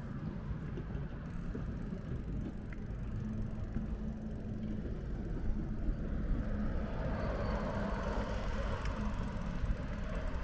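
Street traffic: a steady low rumble of vehicles, with one growing louder and passing in the last few seconds.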